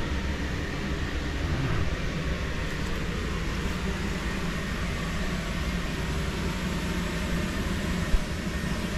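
Electric inflatable blower fan running steadily with a low hum, keeping the bouncy castle inflated. One brief thump near the end.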